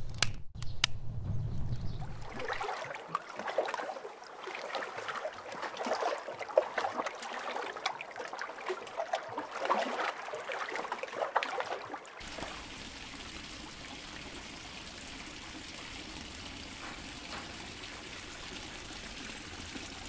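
Fire crackling over a low rumble for the first couple of seconds. Then comes lake water lapping and splashing lightly in many small irregular sounds. From a little past halfway, a steady, even stream of water pours from a spout into a pool.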